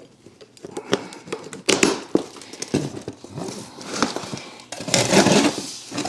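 Packaging rustling, with irregular clicks and knocks from parts being handled as exhaust components are unboxed. The busiest, loudest handling comes near the end.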